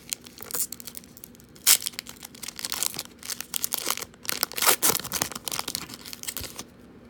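Foil wrapper of a trading-card pack crinkling and tearing as it is ripped open and the cards are pulled out: a run of sharp crackles with loud spikes about two seconds in and again near five seconds, dying away shortly before the end.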